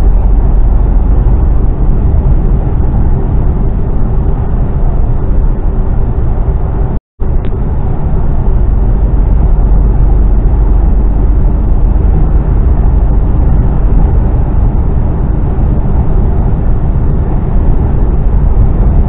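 Mercedes-Benz Actros lorry's diesel engine and road noise heard from inside the cab while driving, a steady low drone. The sound cuts out completely for a moment about seven seconds in.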